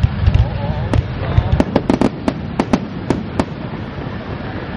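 Fireworks display: a rapid string of sharp bangs and crackles from exploding shells over the first three and a half seconds, then only a steady rumble.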